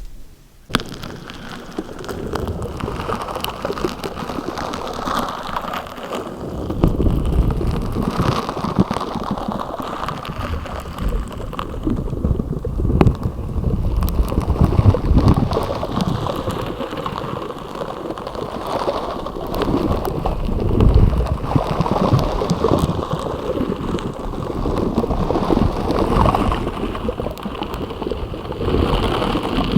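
Slime being squeezed and kneaded by hand: a dense crackle of tiny pops and squelches that comes in repeated swells.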